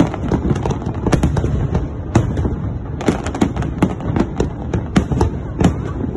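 Aerial fireworks display: a rapid, unbroken run of shell bursts and crackles, several sharp bangs a second over a steady low rumble.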